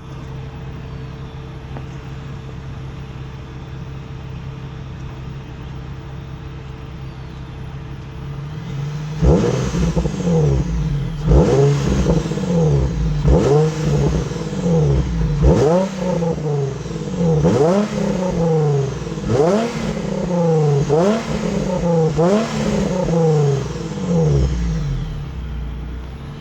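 2004 Nissan 350Z's 3.5-litre V6 on its stock exhaust, idling steadily, then blipped in a dozen or so quick revs about a second and a half apart before settling back to idle near the end.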